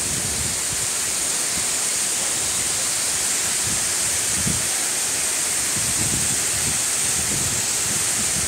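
Waterfalls pouring down a rock face into a pool, a steady rush of water with a constant high hiss over it.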